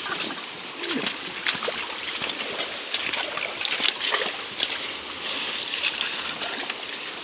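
Shallow stream water running over stones, with short splashes and sloshes as hands and booted feet work through the muddy water.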